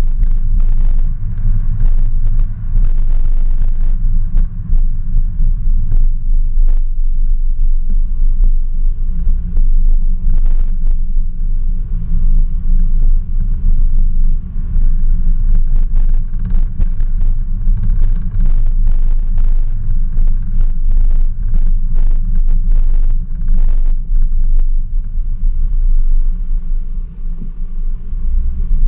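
Steady low rumble of a car driving, picked up by a camera mounted on its hood, with scattered small knocks and rattles.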